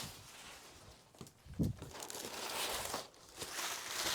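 Packaging crinkling and rustling as items are handled out of a box, with a soft thud about a second and a half in.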